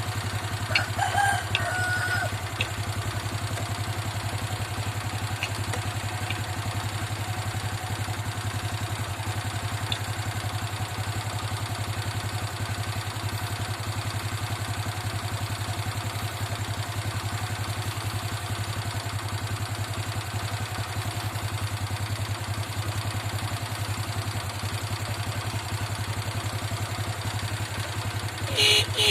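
Motorcycle engine idling steadily, with a rooster crowing briefly about a second in. A motorcycle horn starts beeping loudly right at the end.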